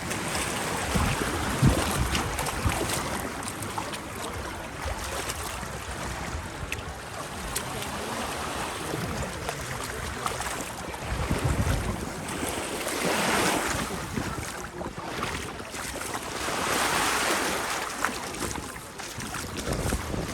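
Small sea waves washing onto the beach, swelling and falling away every few seconds, with wind gusting on the microphone.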